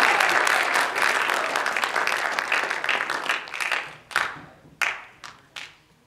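Audience applauding, the applause dying away about four seconds in to a few scattered claps.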